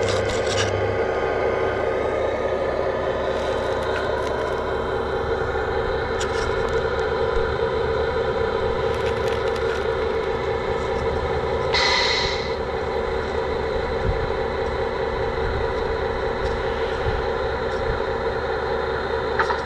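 Radio-controlled dump truck's tipper drive whining steadily as the bed slowly rises and the load of sand slides out. There is a short hiss about twelve seconds in.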